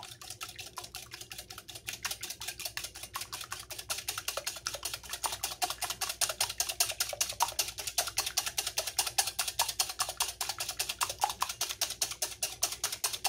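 Wire whisk beating two raw eggs in a glass bowl: a quick, steady rhythm of clicks as the tines strike the glass, getting louder after the first couple of seconds. The eggs are being beaten until white and yolk are mixed.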